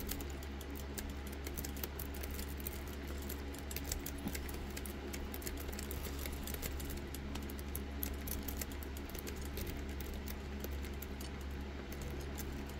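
Lock pick raking the five spool pins of a Master Lock 550 EURD padlock's stainless steel dimple core: a rapid, continuous run of small metallic clicks and scrapes, over a steady low hum.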